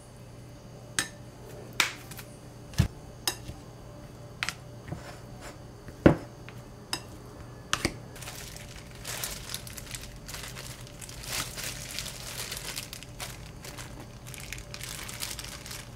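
A spoon clicking and knocking against a glass mixing bowl as rice is stirred, a dozen or so separate knocks. From about halfway there is the steady crinkling of thin disposable plastic gloves being pulled on and worked.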